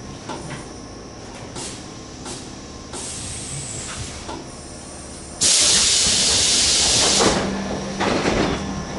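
Tobu 8000 series electric train standing at a station: a loud burst of compressed air hissing out for about two seconds, with a shorter hiss before it and another after. A low steady hum sets in right after the big hiss.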